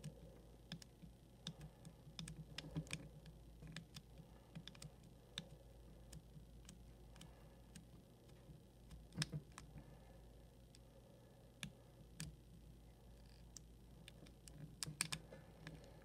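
Dial rings of a Schwinn comb-type combination bike lock clicking faintly and irregularly as they are turned one position at a time with the lock held under tension, with a few louder clicks about nine seconds in and a quick run of clicks near the end.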